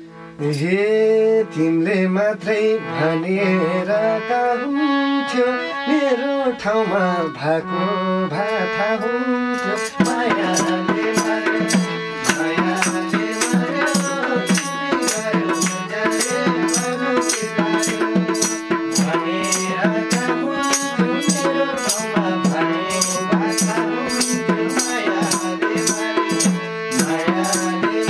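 Live Nepali dohori folk music: a harmonium holding the melody, a madal drum and jingling tambourines keeping the beat, with hand claps. For about the first ten seconds a sung line glides and wavers over the harmonium, then the drum and tambourine rhythm takes over more strongly.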